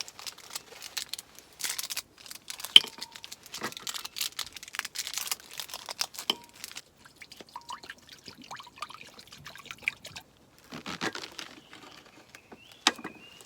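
Irregular handling sounds: crinkling of packaging with many light clicks and knocks, and a brief squeak near the end.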